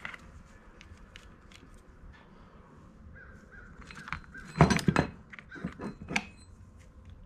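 Small metal parts and tools clinking and clattering on a workbench. Light scattered clicks, then a quick run of louder knocks a little past halfway and a few more shortly after.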